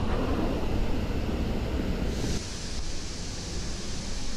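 Steady rushing roar of a large waterfall, with wind buffeting the microphone. A little after two seconds in, the sound turns hissier.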